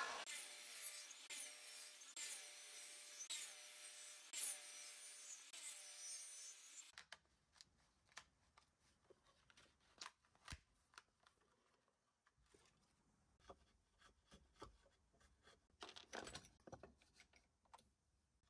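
Table saw cutting kerfs into a wooden 4x4 block, its pitch dipping and recovering over and over as the wood is fed across the blade, to clear material for a spigot notch. It stops about seven seconds in, leaving only faint scattered knocks and clicks.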